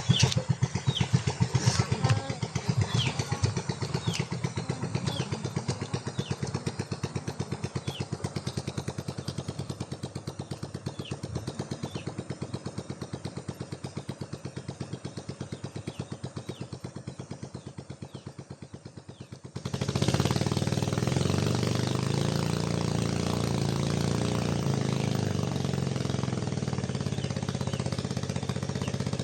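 A small engine running with a fast, even beat. About twenty seconds in, the sound cuts abruptly to a louder, fuller engine noise.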